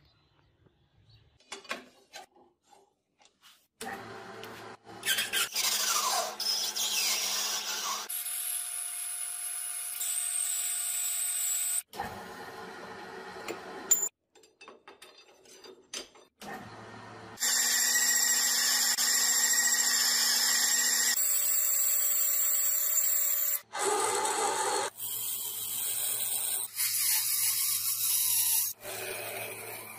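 Metal lathe running in a string of short, abruptly cut clips: steady motor tones and cutting noise as a brass rod is turned, ending with a twist drill boring into the spinning rod. The first few seconds are nearly quiet, with only faint clicks.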